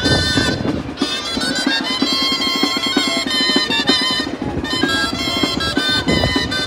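Navarrese gaitas (double-reed shawms) and a drum playing a waltz, the reedy melody over a steady drum beat.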